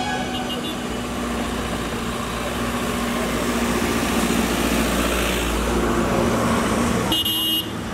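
Road traffic: a motor vehicle rumbling past, the low rumble building over several seconds. A brief high-pitched tone sounds near the end.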